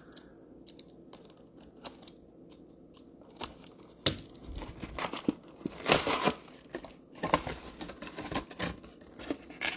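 Trading-card packaging being torn open and crinkled by hand: a few faint clicks at first, then sharp tearing and rustling from about four seconds in, loudest around six seconds.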